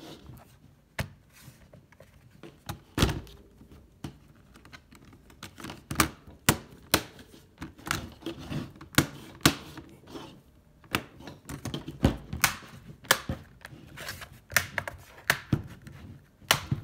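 Plastic snap clips of an HP laptop's keyboard deck clicking into the base as it is pressed shut along the edges: a run of sharp clicks and light knocks at irregular intervals.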